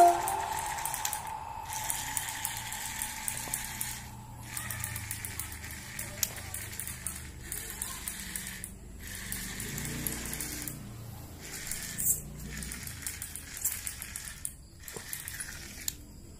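The last note of background music dies away, then faint scattered clicks and light rattles on a hard tiled floor.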